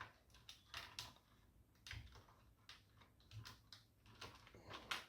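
Faint, irregular plastic clicks and small knocks of a keycap being worked onto a mechanical keyboard's costar stabilizer wire and switch, fiddly and not yet seating.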